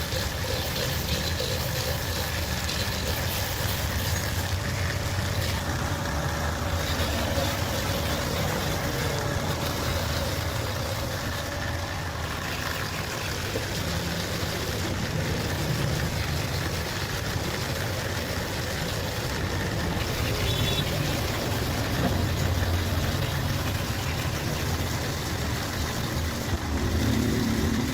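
Steady low engine-like rumble with a continuous mechanical hum.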